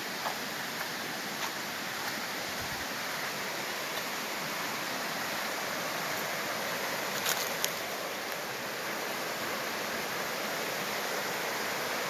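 Shallow, rocky stream rushing over stones: a steady rushing noise, with a couple of brief clicks a little past the middle.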